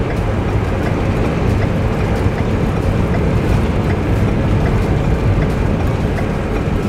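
Road and engine noise heard inside the cab of a class C motorhome at highway speed: a steady low rumble.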